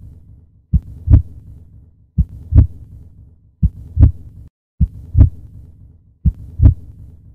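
Heartbeat sound effect: slow double thumps, the second of each pair louder, repeating about every one and a half seconds.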